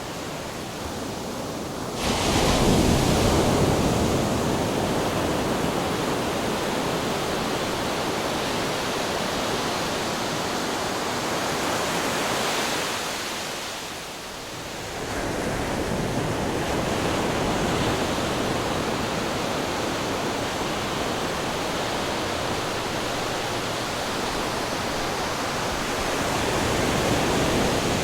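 Ocean waves crashing on rocks: a continuous rush of surf with a wave breaking suddenly about two seconds in, a brief lull at about fourteen seconds, then the surge building again.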